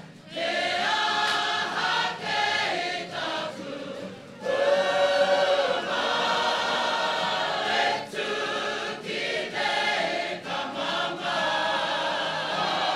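Māori kapa haka group singing a waiata together in chorus, phrases broken by short pauses for breath, with a loud held note about four and a half seconds in.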